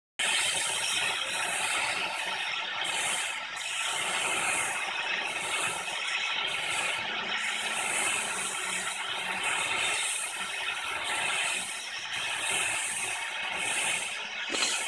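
Oxy-acetylene torch flame hissing steadily against the steel of a rear brake rotor, heating it to free the rotor where it is seized to the hub. The hiss starts abruptly just after the start.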